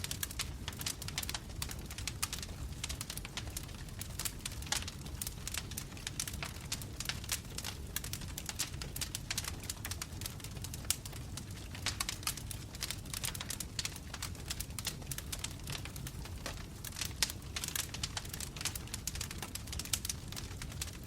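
Wood fire burning in a fireplace: a steady low rumble of the flames with constant sharp crackles and pops from the burning logs.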